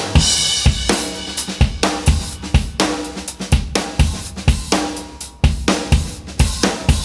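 Background rock music with drums and cymbals and a steady beat.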